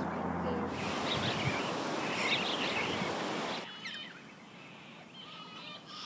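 Superb parrots giving short chirping calls over a steady background hiss; the hiss drops away suddenly about three and a half seconds in, leaving fainter calls.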